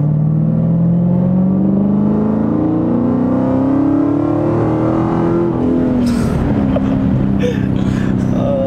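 Dodge Hellcat's supercharged 6.2-litre V8, with its mid-muffler deleted, heard from inside the cabin under hard acceleration. The revs climb steadily for about five and a half seconds, then drop sharply at an upshift and hold a lower, steady pitch.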